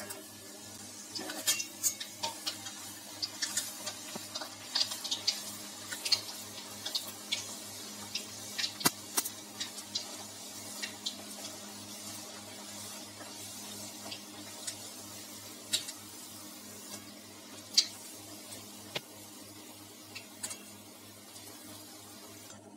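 Bedmi puri deep-frying in hot oil in a steel kadhai: crackling and sharp pops, with clicks of a perforated steel skimmer against the pan. The pops are thickest in the first half and thin out later, over a steady low hum.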